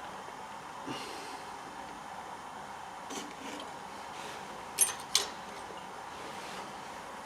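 Two sharp metallic clicks about five seconds in, with a few softer knocks before them, from the boring cutter being handled and set in the chuck of a TV-4 lathe that is not running. A steady background hiss lies under them.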